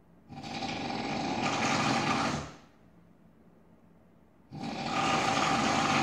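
A sleeping person snoring loudly: two long snores of about two seconds each, about two seconds apart.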